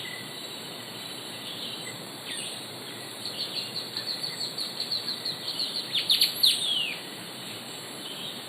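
A bird singing in a tropical forest: a fast series of short, sharp notes, about six a second, that grows louder and ends in a few loud notes sliding down in pitch, over a steady background hiss of insects.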